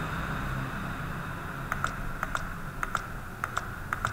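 Sharp clicks from a computer keyboard and mouse, mostly in close pairs, starting about a second and a half in, over a steady background hum.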